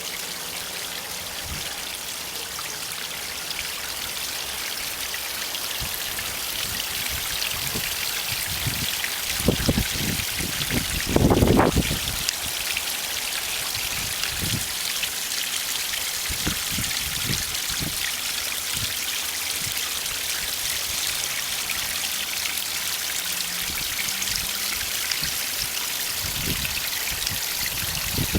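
Backyard garden waterfall: water spilling steadily over rocks with a continuous splashing hiss, and a few low bumps about halfway through.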